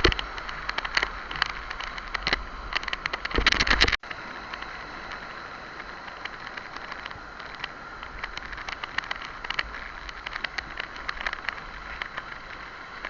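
Rushing whitewater with splashing spray crackling, and wind buffeting the microphone for the first four seconds. The sound cuts off abruptly about four seconds in, and a steadier, quieter water hiss with scattered crackles follows.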